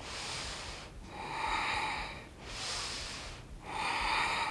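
A woman breathing audibly through the throat while doing a core exercise: four drawn-out breaths, each about a second long, with short pauses between them.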